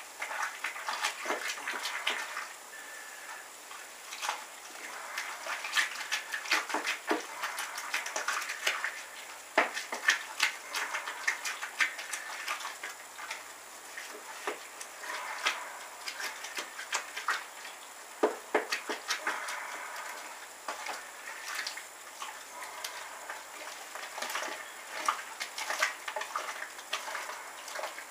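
Grain mash being stirred by hand with a paddle in a plastic cooler mash tun, breaking up the mash-in: irregular knocks and scrapes of the paddle against the cooler walls, with wet stirring of grain and water.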